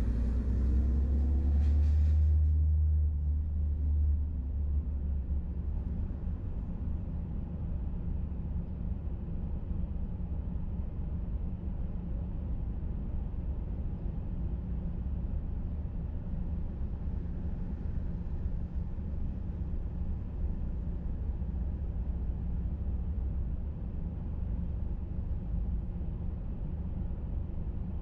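Car on the move: a continuous low rumble of engine and road noise. The engine note rises for about the first two seconds as it accelerates, then settles to a steady drone.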